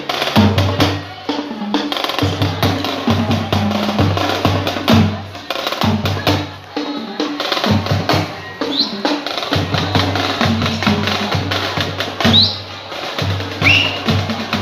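Carnival percussion music: fast drumming with a wood-block beat over a deep, recurring bass note. Short rising high notes sound three times in the second half.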